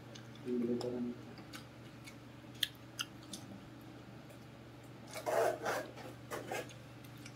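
Someone chewing longan fruit: soft mouth clicks and, about five seconds in, a louder rasping, wet noise, over a steady low hum.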